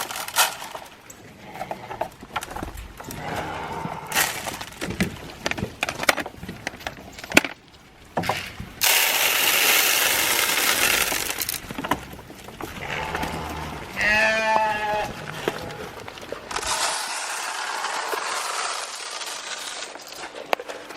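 A sheep bleats once, a short quavering call, about two-thirds of the way through. Around it are two long stretches of rushing, rattling noise and scattered knocks.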